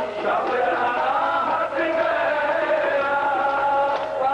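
Sikh kirtan: male singing with harmonium accompaniment, heard through the dull, hissy sound of an old VHS recording.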